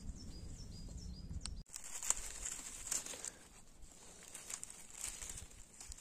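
Dry oak leaves rustling and crackling as a hand searches through the leaf litter and picks morel mushrooms. There are scattered crisp crackles, and a sharp break about two seconds in. A small bird gives a quick run of short high falling chirps in the first couple of seconds.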